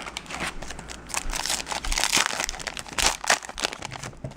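Foil Yu-Gi-Oh booster pack wrapper crinkling and tearing as it is opened: a run of quick, irregular crackles.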